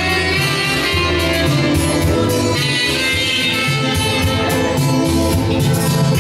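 Live band dance music with a saxophone playing sustained melody notes over a steady bass.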